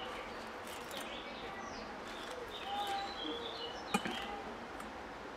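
Small birds chirping and whistling in short calls, with a single sharp click about four seconds in.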